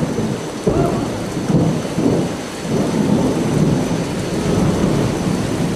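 Heavy rain falling during a thunderstorm, with thunder rumbling in surges.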